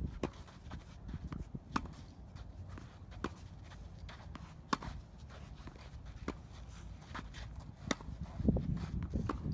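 Tennis rally on a hard court: rackets striking the ball and the ball bouncing, heard as a string of sharp pops at uneven intervals of about half a second to a second. A low rumble comes in near the end.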